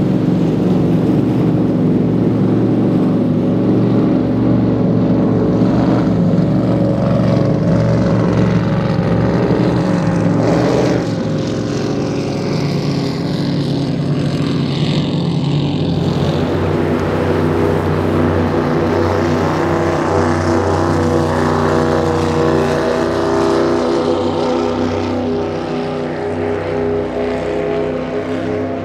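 High-performance offshore powerboat engines running hard at speed, a steady loud engine drone with strong low tones. The sound drops slightly and changes about eleven seconds in and shifts again around sixteen seconds.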